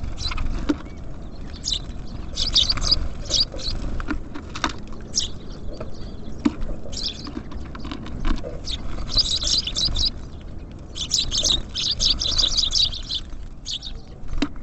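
Small songbirds at a feeder, chirping and twittering in quick runs, busiest about two-thirds of the way through, with scattered sharp taps.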